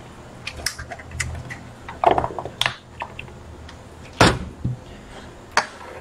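Clear plastic compartment organizer box being handled and closed: a series of light plastic clicks and knocks, the sharpest about four seconds in.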